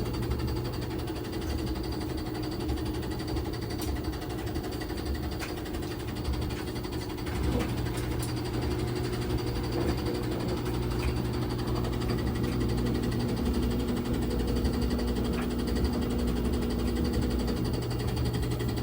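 LG WT1101CW top-load washing machine running, by the title on its spin, a steady mechanical hum with a few faint clicks. A higher tone comes in about seven seconds in and drops out near the end. The noise is the one the owner complains of as the washer shaking and knocking.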